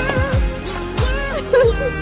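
Background music with a steady beat of deep bass thumps that drop in pitch, under a sustained melody.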